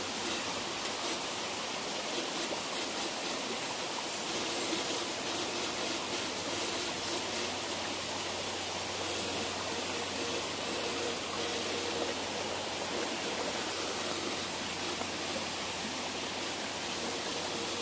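Shallow creek water splashing and sloshing around a person's legs as they wade through it, a steady, even rush of water.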